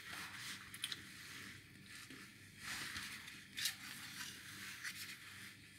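Faint handling noise of a hard plastic model-kit hip cover being picked up and turned in the hands: a few light scrapes and taps.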